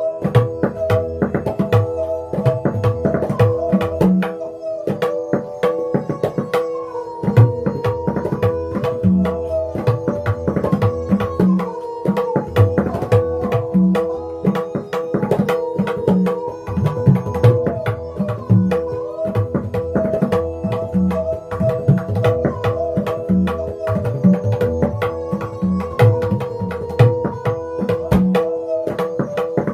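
Tabla solo in teentaal: rapid strokes on the dayan with the bayan's bass strokes swelling underneath. It is played over a steady, repeating melodic lehra accompaniment of held tones.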